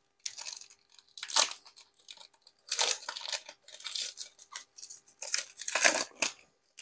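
Trading-card pack wrapper being torn open and crinkled by hand, in a series of short, irregular rustling crackles.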